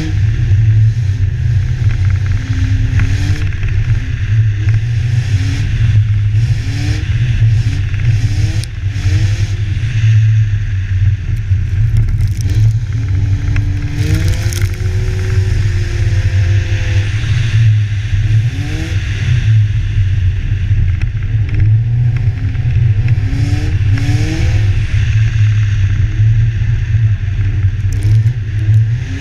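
BMW engine revving up and down as the car drifts on snow-covered ice: short rising revs roughly once a second, with a longer held rev about halfway through. A constant heavy low rumble of wind on the bonnet-mounted camera runs underneath, with scraping and crackling from the snow.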